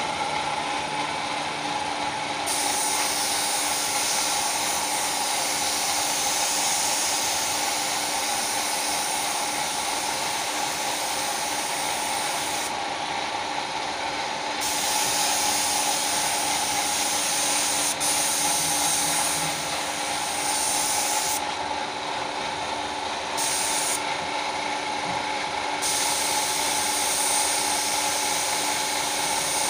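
Air-powered paint-shop equipment running steadily: a continuous hiss with several steady humming tones underneath.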